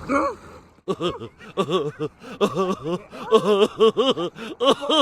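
A person laughing in a run of short, repeated chuckles that start about a second in.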